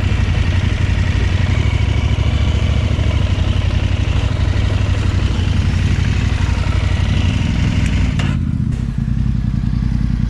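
Adventure motorcycle's parallel-twin engine running steadily on the move, with wind rushing over it. About eight seconds in, the wind noise cuts off sharply and the engine carries on more quietly.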